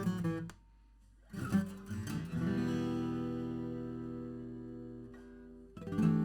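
Taylor 314ce steel-string acoustic guitar being played. A phrase stops, there is a short pause, then a few notes lead into a chord that rings out and fades for about three seconds before playing starts again near the end.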